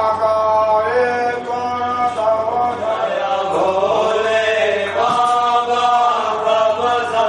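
Hindu devotional chanting: voices singing a mantra in long held notes that glide from one pitch to the next.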